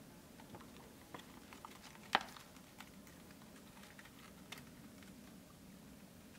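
Small wood cooking fire being tended: scattered light crackles and clicks of burning and handled twigs, with one sharper crack about two seconds in.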